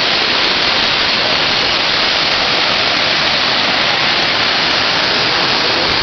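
Jungle waterfall cascading over boulders, close by: a loud, steady rush of water.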